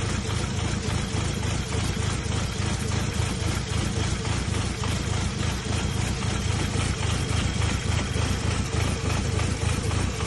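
VW Golf V's 1.6 FSI four-cylinder petrol engine idling with a misfire, a steady engine sound with no change in speed.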